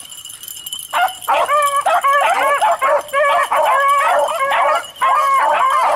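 A pack of beagles baying as they run a rabbit's scent trail, several voices overlapping in short, quickly repeated cries that break out about a second in and carry on without a pause.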